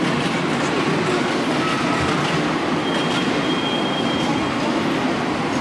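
An H0-scale model freight train running along the layout's track against the steady din of a busy exhibition hall, with a thin high squeal for about a second, starting about three seconds in.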